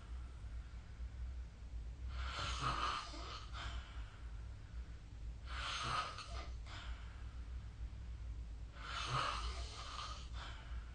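A sleeping person snoring: three noisy breaths, each lasting about a second and a half and coming roughly every three and a half seconds, over a low steady hum.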